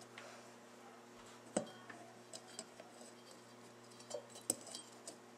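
Small metal clicks and clinks of vise grips pressing a valve spring's top ring down on a small OHV cylinder head while the split valve retainers are worked into place. There is a sharper click about a second and a half in and another near the end.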